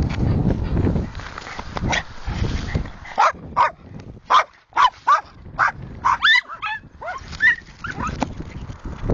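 A dog barking in a quick run of about ten short, high barks and yips, roughly two a second, starting about three seconds in. Before that there is a loud low rumbling noise.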